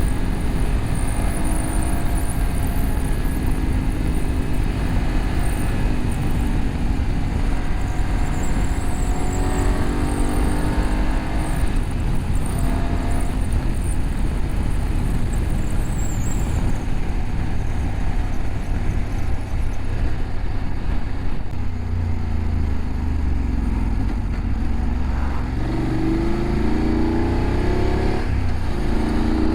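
BMW F850GS parallel-twin engine through an Akrapovic slip-on exhaust with the catalytic converter bypassed, running at road speed under steady wind noise on the microphone. Its note climbs as the bike accelerates about a third of the way in and again near the end, with a short break just before the end.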